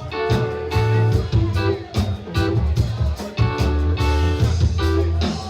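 Band music led by guitar, with a low bass line and a steady beat of sharp hits.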